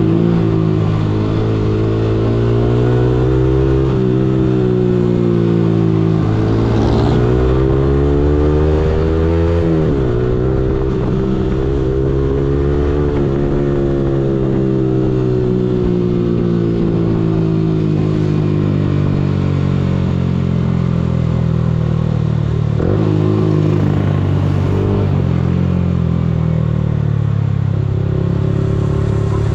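Yamaha R15M's 155 cc single-cylinder engine pulling up through the gears: its pitch climbs and drops back at each of about four upshifts, then falls slowly and settles low as the bike slows down.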